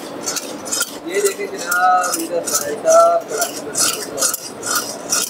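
Metal ladle scraping and clanking against a steel karahi wok while meat is stirred, in quick repeated strokes of about two to three a second, with a few short metallic rings.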